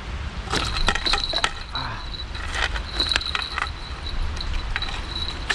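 Scattered light clicks and clinks of fishing tackle being handled while a common carp is unhooked in a landing net, over a steady thin high-pitched tone and a low rumble.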